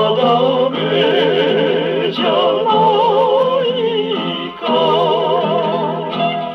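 A 1959 78 rpm shellac record playing on a Columbia G-241 acoustic portable gramophone: a band with a wavering, vibrato-laden melody line, thin-sounding with no deep bass, with a brief drop in the music about four and a half seconds in.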